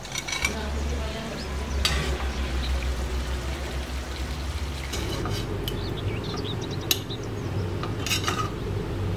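Chicken simmering and sizzling in a reduced spiced broth in a stainless-steel pan while a metal slotted spatula stirs it, with a few metal clinks against the pan.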